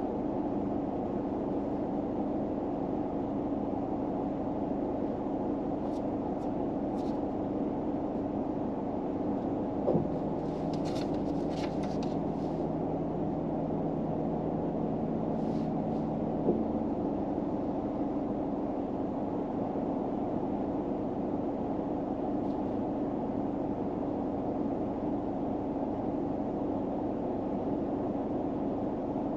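Steady low hum of a car running, heard inside the cabin. About ten seconds in a click brings in an extra lower tone, which stops with another click some six seconds later. A few faint brief rustles come in between.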